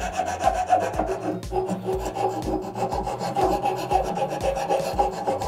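Hand files rasping back and forth along the edges of a bandsawn wooden cutout held in a vise, in repeated strokes, smoothing away the rough edges left by the bandsaw.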